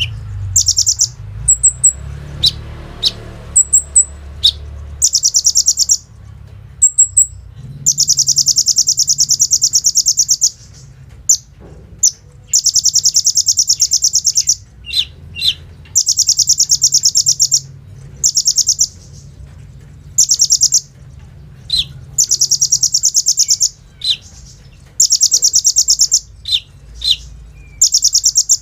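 Kolibri ninja sunbird singing: about seven long, very fast rattling trills of a second or two each, high-pitched, with short sharp chips between them. This is the rapid machine-gun-like 'bren' trilling prized in a bird in full song ('gacor').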